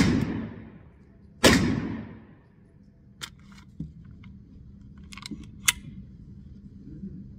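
Kel-Tec PMR-30 pistol firing .22 WMR rounds. One shot lands about a second and a half in, with a long echoing tail, and the tail of another shot fades just as the sound begins. A few light metallic clicks of gun handling follow.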